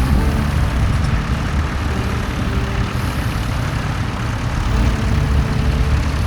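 Tractor engine running steadily, a low, even drone.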